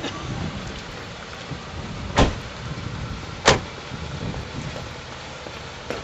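Doors of a four-door sedan slammed shut: two sharp bangs about a second and a half apart, over a steady low background noise.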